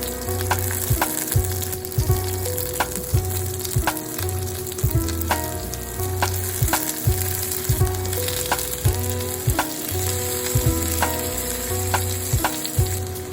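Vegetables frying and sizzling in a pan, under background music with a steady beat.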